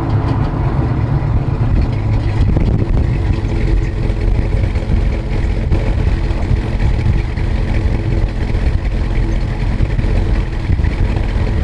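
1966 Chevelle's 454 big-block Chevy V8 running with a steady low rumble.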